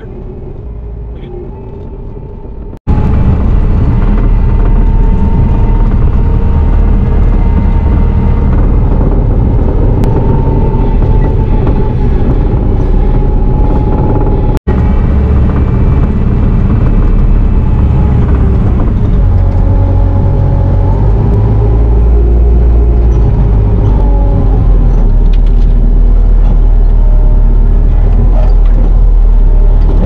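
Bobcat T650 compact track loader's diesel engine running as the machine travels, heard from inside the cab: a loud, steady rumble with a faint steady whine over it. It is quieter for the first few seconds, jumps to full loudness about three seconds in, drops out for an instant about halfway, and grows deeper and heavier in the last third.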